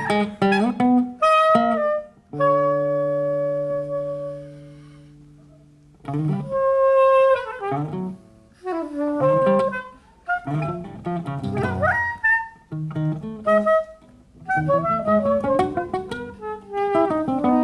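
Free improvised duet of soprano saxophone and guitar: quick, busy phrases with slides in pitch. Early on one long note is held and fades away over about three seconds before the busy playing resumes.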